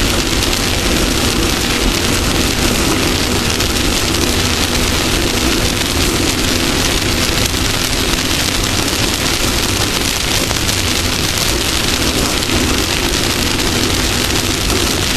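Off-road race vehicle driving at speed: a steady engine drone under loud, even road and wind noise.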